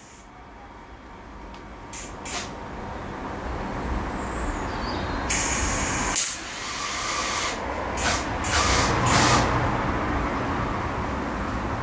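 Electric arc welding a steel bracket onto a motorcycle frame: a steady hiss from the welding arc that builds up over the first few seconds and breaks off briefly about six seconds in.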